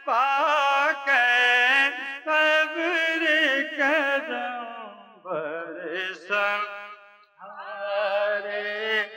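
A man's voice reciting a naat in a drawn-out, ornamented chanting style, over a steady low drone, with short breaks between phrases about five and seven seconds in.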